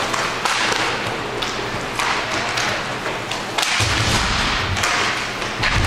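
Inline hockey play: skates, sticks and puck clattering on the rink floor in a string of sharp clicks and scrapes, with dull thuds about four seconds in and again near the end.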